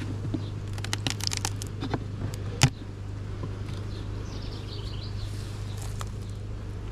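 Honeybees buzzing steadily around an opened hive, with a few clicks and one sharp knock about two and a half seconds in.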